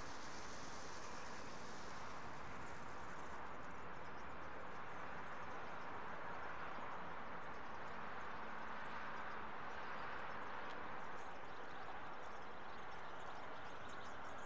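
A feeding flock of European goldfinches twittering, many quick, thin, high calls over a steady rushing hiss.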